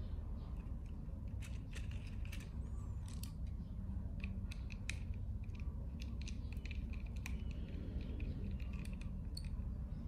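Irregular small clicks and ticks of plastic and metal parts as a toy RC helicopter is handled and worked on with a small screwdriver, over a steady low hum.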